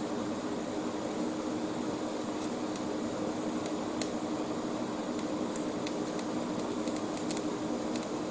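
TIG welding arc from a Parweld XDI 201 inverter welder, a steady hiss with a constant hum underneath and a scattered few faint ticks.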